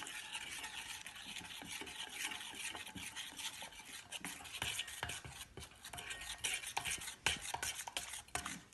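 A utensil stirring pancake batter in a bowl: steady scraping, with frequent small clinks of the utensil against the bowl.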